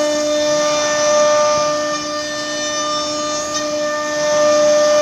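CNC wood router's high-speed spindle running with a steady high whine and a hiss over it. It is louder in the first second or so and again near the end.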